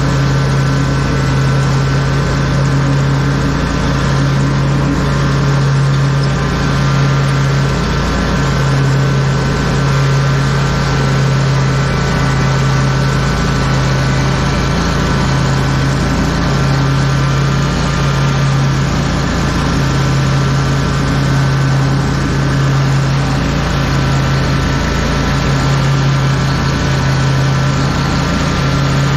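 Lawn mower engine running steadily at constant speed, a loud even hum with no change in pitch.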